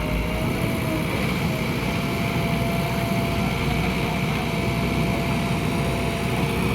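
A JCB 3DX backhoe loader's diesel engine running steadily at high revs, with a held whine over a low rumble that rises slightly about half a second in.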